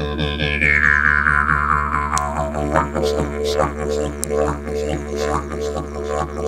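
Didgeridoo played solo: a continuous low drone with a rhythmic pulse of accents about twice a second. A bright overtone sweeps downward near the start as the player shapes the sound.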